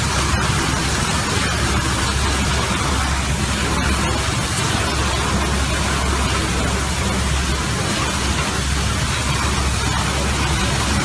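Pressurised water jetting from a burst water main under the road, a loud steady rushing hiss with a low rumble beneath it.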